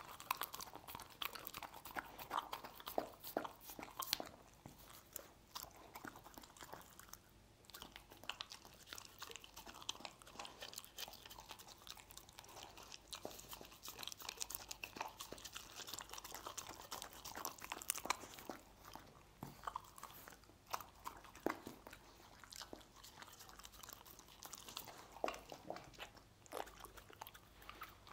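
A dog chewing stir-fried meat, with many sharp, irregular crunches and bites.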